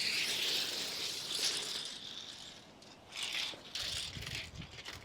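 Chalk line reel being cranked in with a ratcheting whirr: one long spell of winding, then two shorter spurts.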